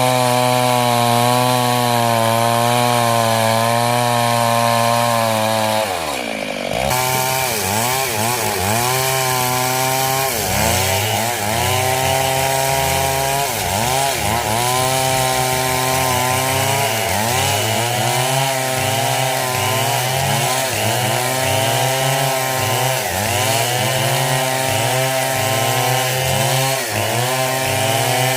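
Gasoline chainsaw cutting hardwood coconut wood: the engine runs at a steady high pitch, breaks off briefly about six seconds in, then its pitch keeps dipping and recovering about once a second as the chain works under load in the cut.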